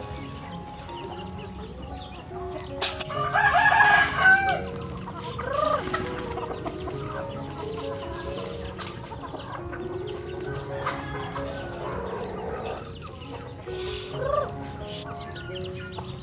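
Chickens clucking around grain, with a rooster crowing loudly about three seconds in and a few shorter calls later.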